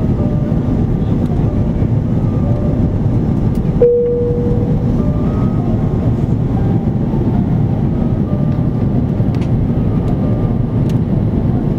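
Steady low roar of engines and airflow inside the cabin of an Airbus A340-300, a four-engined airliner, descending on approach. About four seconds in, a short single tone sounds for about a second over the roar.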